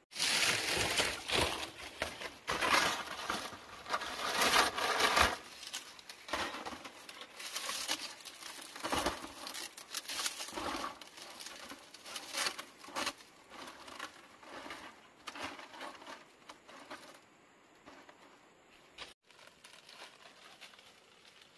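Dry leaf thatch rustling and crackling as bundles are handled and tucked over a bamboo roof frame. It is loudest and busiest in the first five seconds, then goes on as softer, scattered rustles that fade near the end.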